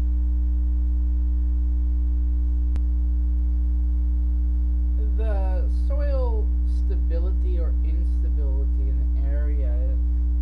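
Loud steady electrical mains hum. About halfway through, a woman starts speaking faintly under it.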